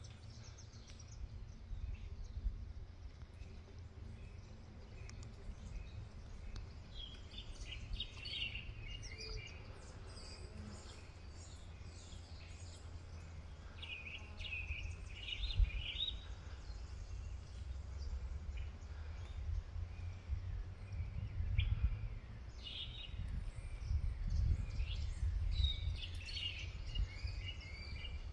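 Birds chirping in several short bursts of quick high notes over a steady low rumble.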